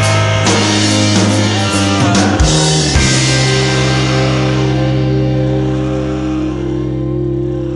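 Background rock music with guitar and drums; about three seconds in the drums stop and a held chord rings on, slowly fading.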